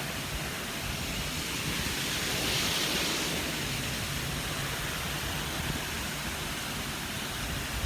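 Large waterfall: a steady rush of falling water, swelling a little and growing brighter about two to three seconds in.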